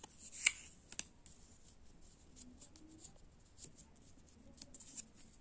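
UNO playing cards being handled: a sharp snap about half a second in and a click a second in, then scattered light ticks and rustles of cards being picked up and flicked.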